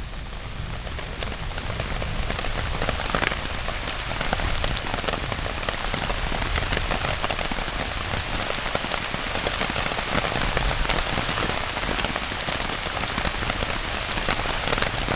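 Heavy rain falling, a dense patter of many drops striking close by, building up over the first few seconds and then holding steady.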